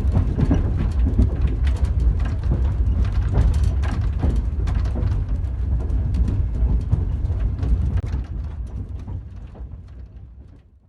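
Passenger train carriage riding along: a steady low rumble with irregular clicks and knocks of the wheels and car, fading out near the end.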